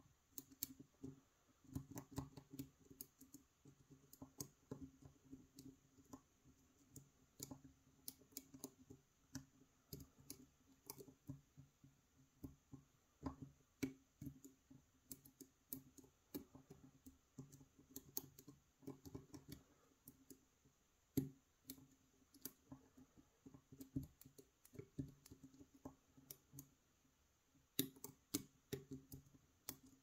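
Faint, irregular clicking and light scraping of a hook pick and tension wrench working the extremely tapered pins of a brass cylinder challenge lock, as the picker finds each binding pin and pushes it up.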